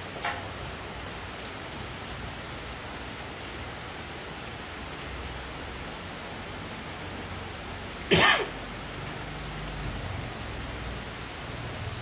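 Steady hiss of falling rain. About eight seconds in comes a single short, loud burst whose pitch drops sharply, with a fainter short burst right at the start.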